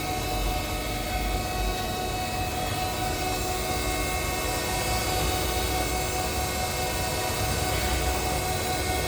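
Nakamura-Tome TMC-15 CNC lathe running steadily: a constant machine hum with several held tones over an even mechanical noise.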